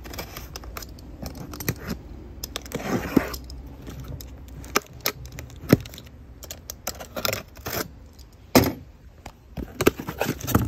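A utility knife slicing through packing tape along the seam of a cardboard shipping box, with a longer cut about three seconds in and many sharp clicks, scrapes and cardboard crackles as the box is handled and cut open.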